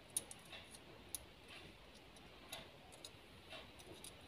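Faint, scattered clicks and light taps of small electrical switch parts being handled as a small metal contact strip is fitted into the switch body. The two sharpest clicks come near the start and about a second in.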